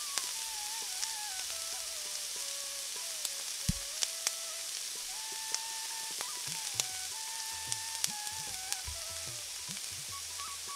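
Coated chicken pieces deep-frying in oil on low heat: a steady sizzle with scattered sharp pops. A quiet background melody of single held notes plays over it.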